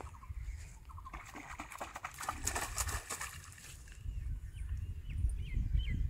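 Riverside ambience: a small bird chirping in a run of short calls in the second half, after a couple of seconds of crackly rustling noise, over a low rumble that grows louder near the end.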